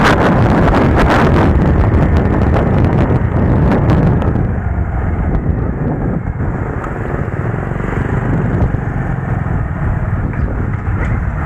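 Motorcycle engine running under way while riding, with wind rushing over the microphone. The hiss thins out and the sound eases a little about four and a half seconds in.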